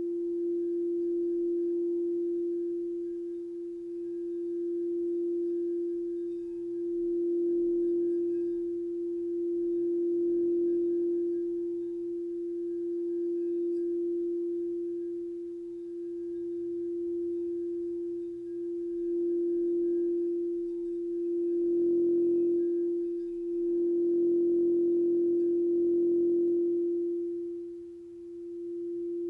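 Frosted quartz crystal singing bowl being rimmed with a wand, ringing one steady pure tone that swells and ebbs in loudness every few seconds.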